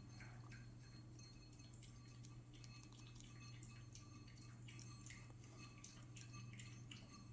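Near silence: a faint steady low hum of room tone with a few very faint small ticks.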